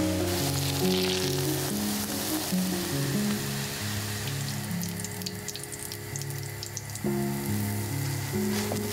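Grated-potato hash browns sizzling in hot oil in a frying pan, over gentle background music with a slow stepping melody. The dense sizzle fades after two or three seconds, leaving scattered faint crackles.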